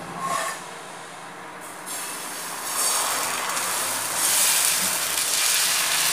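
Rice batter sizzling on a hot, oiled tava as it is poured and spread into a thin round with a ladle; the hiss swells from about two seconds in and stays up.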